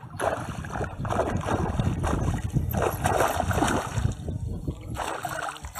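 A hooked pike thrashing at the surface close to the bank, in irregular bursts of splashing and churning water, with a short lull about four seconds in.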